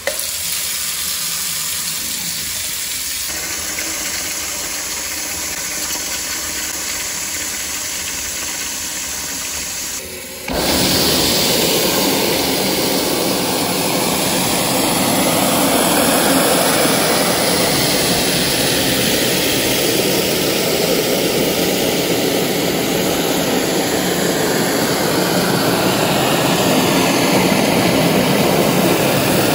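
Water from a kitchen faucet running steadily into a stainless steel sink, filling it with soapy water. After a brief drop about ten seconds in, it is louder as the faucet's spray head runs into the suds.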